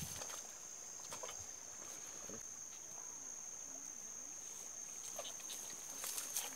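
Steady high-pitched insect buzz, with a few faint clicks and rustles scattered through it.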